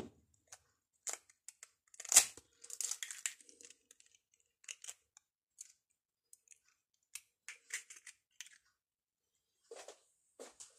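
Egg frying in melted butter in a small non-stick pan: faint, scattered crackles and pops, with a louder click about two seconds in.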